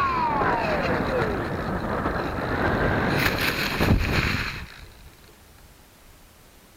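Bixler 2 RC plane's electric motor and propeller winding down, a whine falling steadily in pitch over the first second and a half, then wind rushing past, a thump about four seconds in, and the sound dropping to a faint hiss.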